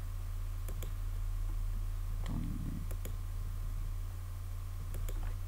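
Computer mouse clicking a few times, single sharp clicks spaced a second or two apart, over a steady low electrical hum.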